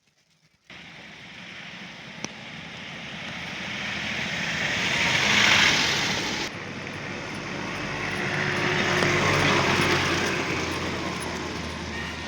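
Vehicles driving past on a snow-covered road, engine and tyre noise swelling to a peak about five seconds in and dropping suddenly a second later. A second vehicle then builds and fades near the end.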